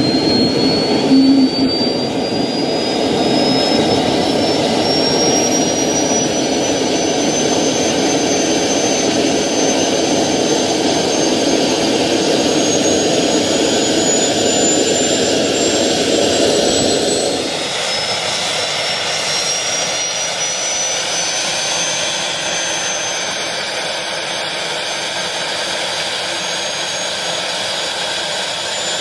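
Tiernay TT10 gas turbine engine running on its test stand, with a loud rushing roar and a high whine that climbs slowly in pitch as the engine spools up. A short knock is heard about a second in, and the low end of the roar drops away about two-thirds of the way through.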